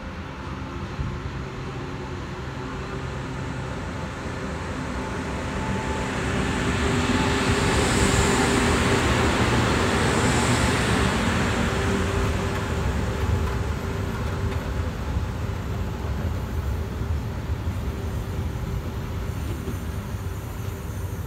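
ČD Cargo class 365 electric locomotive passing close with a freight train. The rumble swells as it approaches and peaks as the locomotive goes by, with a steady hum and two brief high hisses. The rumble of the covered freight wagons rolling past follows and carries on.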